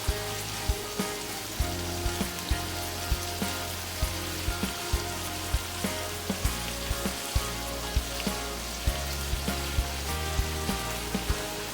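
Mixed seafood (shrimp and scallops) sizzling as it fries in a pan with onion and garlic. It plays under background music with a steady beat.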